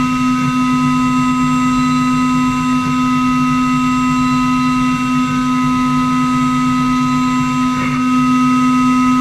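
CNC router spindle running steadily while cutting: a constant whine of several held tones over a rough grinding noise. There is a short change near the end, after which it runs slightly louder.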